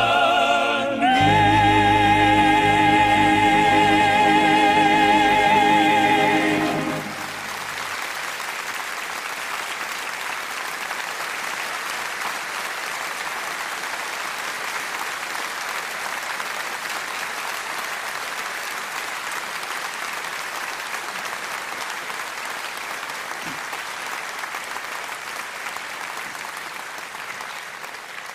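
A soprano and male vocal ensemble with their band hold the song's final chord with wide vibrato, a new held note sliding in about a second in, cutting off about seven seconds in. Then the audience applauds steadily.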